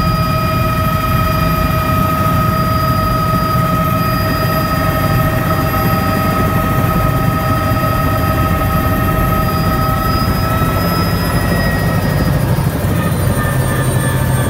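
Bell 206 JetRanger helicopter's Allison 250 turboshaft whining over the low chop of the rotor, heard inside the cabin. It runs steadily, then about eleven seconds in the pitch of the whine starts to fall.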